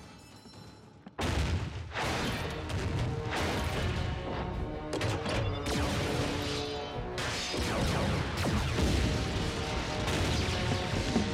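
Dramatic action music with heavy crashes and metal impacts, beginning with a sudden loud hit about a second in.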